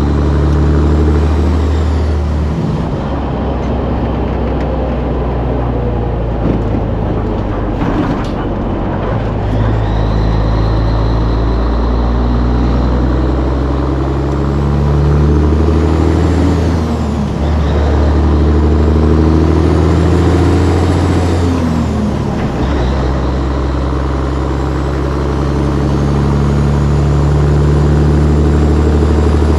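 Caterpillar 3406B diesel in a Peterbilt 362 cabover, pulling hard under load through the gears. Its pitch climbs, then drops back at each upshift, several times over, with a whine rising and falling along with it, over steady wind and road noise.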